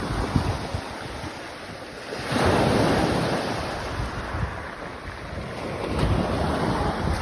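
Surf washing on a pebble beach, with wind rumbling on the microphone; the rushing grows louder about two seconds in, then slowly eases.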